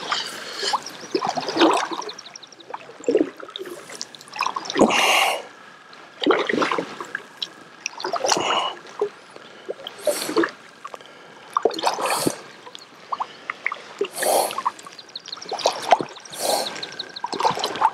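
Water splashing and trickling beside a kayak in short irregular bursts, one every second or two, as the paddle dips and drips.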